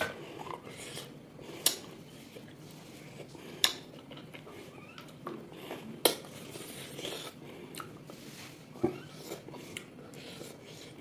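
A person eating pork close to the microphone: chewing and biting, with a few sharp clicks of a utensil or dish.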